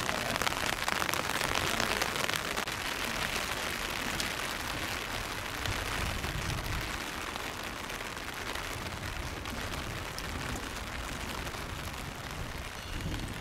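Steady rain falling: an even hiss of drops with no distinct events.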